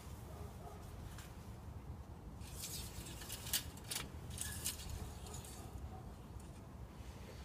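Engine-oil dipstick being wiped with a cloth rag and slid in and out of its metal tube while checking the oil level after a fresh fill: soft rustling with a couple of sharp light clicks around the middle, over a faint low hum.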